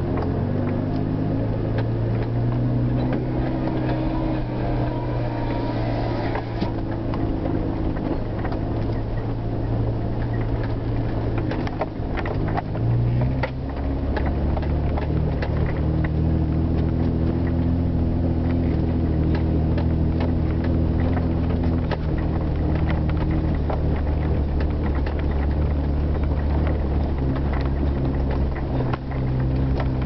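Vehicle engine running under load, heard from inside the cabin while driving up a rough dirt track, with frequent knocks and rattles from the bumps. About twelve seconds in the engine note shifts and then runs lower and heavier.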